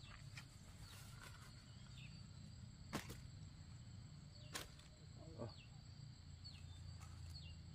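Near silence: faint rural ambience with a steady high insect hum, a few short falling chirps, and two sharp clicks about three and four and a half seconds in.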